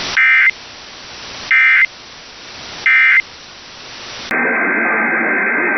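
Emergency Alert System end-of-message: three short bursts of warbling SAME data tones about 1.3 seconds apart over a rising hiss of static. After about four seconds the sound cuts abruptly to a muffled, narrow-sounding radio feed with hiss and a faint steady whistle.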